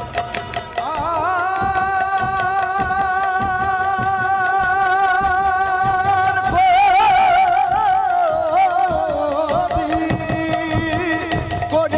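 Baul folk song: a male voice holds one long note with vibrato from about a second in, then turns into a wavering, ornamented line that drops lower near the end. Khol drum strokes and small manjira cymbals accompany it.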